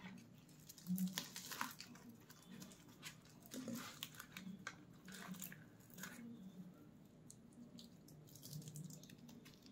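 Fingers tearing a flaky layered flatbread topped with chicken curry: faint, irregular crisp tearing and crackling, in short clusters.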